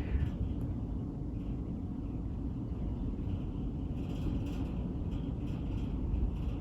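Blizzard wind buffeting the microphone: a steady low rumble with a faint hiss of blowing snow above it.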